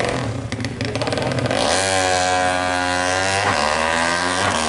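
Motorcycle engine running hard: a rapid stuttering firing at first, then, about two seconds in, a steady high engine note held at high revs that shifts slightly about three and a half seconds in.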